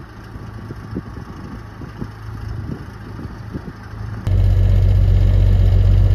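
Cummins 855 inline-six diesel of an International Paystar dump truck idling: first a faint, steady low hum with scattered light clicks, then about four seconds in a cut to inside the cab, where the idle is a much louder, steady low drone.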